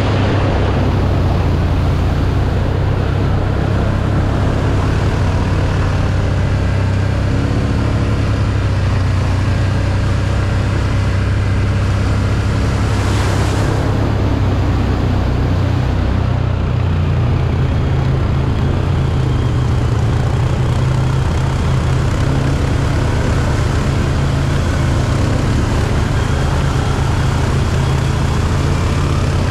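Can-Am 1000 ATV's V-twin engine running steadily under way, a continuous low drone with road and wind noise over it. A brief rush of hiss comes about thirteen seconds in.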